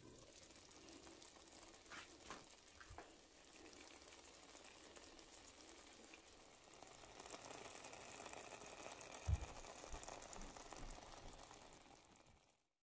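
Faint sizzling of food frying in oil in a pan, a light crackling hiss that grows a little stronger after about seven seconds. A few light taps come early, and a single soft knock, the loudest sound, about nine seconds in; the sound cuts off abruptly near the end.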